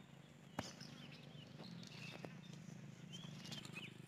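Faint outdoor ambience: a low steady hum with two light ticks and a few faint bird chirps near the end.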